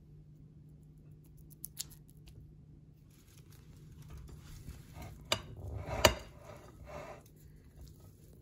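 Kitchen food-prep handling sounds: light rustling and tapping with a couple of small clicks early on, then two sharp knocks about five and six seconds in, over a low steady hum.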